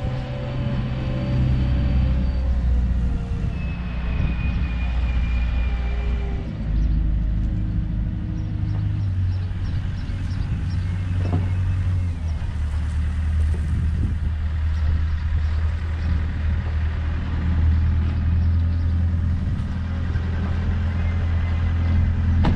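A vehicle engine running with a steady low drone, its note changing about six seconds in and again about twelve seconds in.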